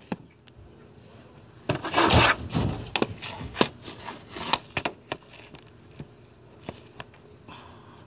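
A burst of rubbing and scraping about two seconds in, followed by a string of light knocks and clicks that thin out after about five seconds.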